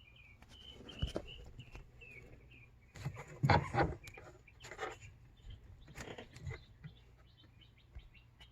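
Small birds chirping in the background, with a few sharp knocks and one louder clatter about three and a half seconds in, from hands working on the steering column.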